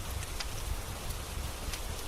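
Steady rain hiss over a low rumble, with a couple of sharp crackles from a wood fire, about half a second in and near the end.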